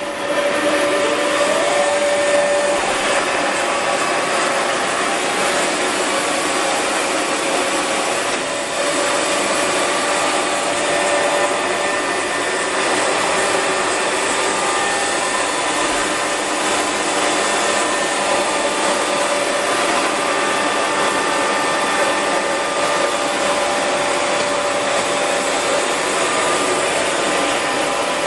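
Bokö milling machine running under power, a steady mechanical whine and hum with several steady tones. A whine rises in pitch over the first couple of seconds, then holds.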